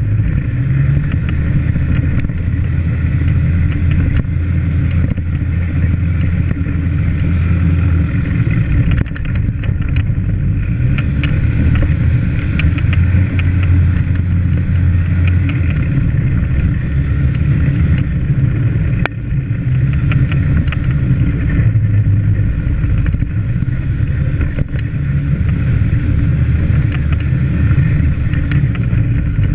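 Off-road vehicle's engine running steadily as it drives along a dirt trail, a low drone that shifts up and down in pitch with the throttle, with light rattling over it.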